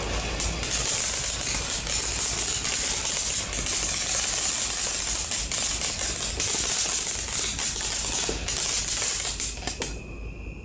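Fountain fireworks burning: a steady hiss of spraying sparks with dense crackling pops running through it, dying away near the end as the fountain burns out.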